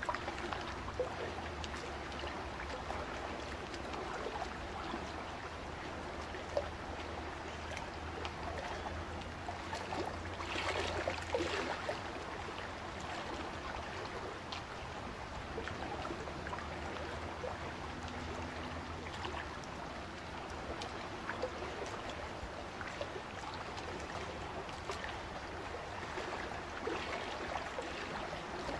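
Small waves lapping and trickling on a sand and pebble shore, a steady wash with scattered small ticks, over a steady low rumble.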